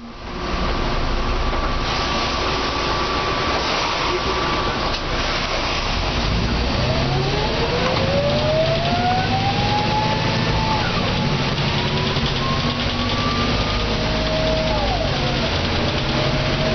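Mercedes O405N bus diesel engine and ZF automatic gearbox pulling away under load. About a third of the way in, a whine starts to rise steadily in pitch. It falls back at a gear change and climbs again as the bus gathers speed.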